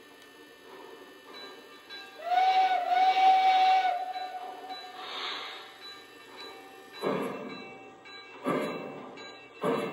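The onboard sound system of an O scale model 2-8-0 steam locomotive sounds its steam whistle, a short toot and then a longer blast, with a hiss of steam after it. The locomotive then starts moving off slowly, with slow, evenly spaced chuffs.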